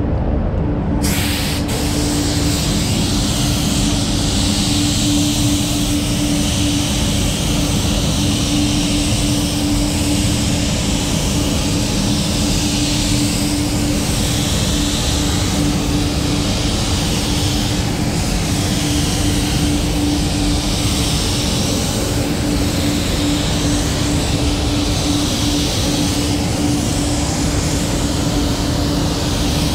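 Compressed-air gravity-feed spray gun applying clear coat, hissing from about a second in and swelling and easing every couple of seconds with each pass. Under it runs the steady rumble and hum of the paint booth's ventilation.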